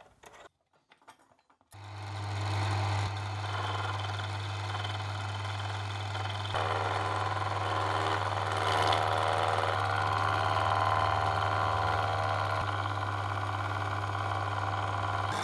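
Small hobby lathe motor starting about two seconds in and running steadily with a strong low hum, driving a tap-like hob that cuts teeth into a brass worm gear; the cutting noise swells in the middle and the machine stops at the end.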